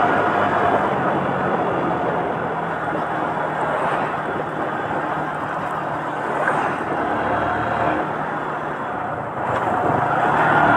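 Motorcycle engine running at a steady cruise, with wind rushing over the microphone. Near the end it gets louder and its pitch rises as the bike accelerates.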